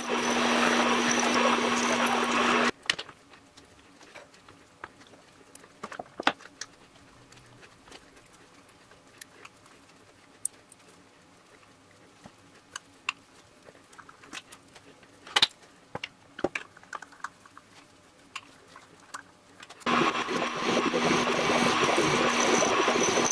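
A milling machine spindle runs with a steady hum as a twist drill cuts into a round metal plate, stopping about three seconds in. Scattered small clicks and knocks from hand work on the plate follow. The drilling starts again near the end.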